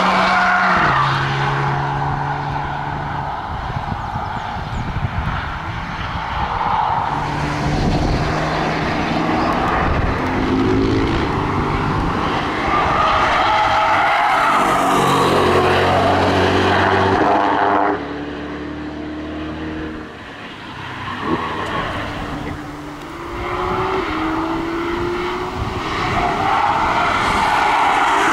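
Prototype performance cars passing one after another through a fast track corner, their engines pulling hard and stepping up in pitch through gear changes over steady tyre roar. The camouflaged 2024 Corvette C8 E-Ray hybrid's V8 fills the middle, with an AMG GLC SUV pulling away at the start and a BMW M3 Touring's straight-six arriving near the end.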